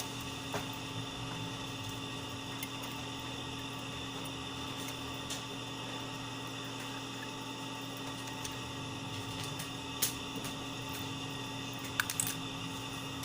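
Steady electrical mains hum, with a few light clicks from handling the opened laptop's parts: one near the start, then a few near the end.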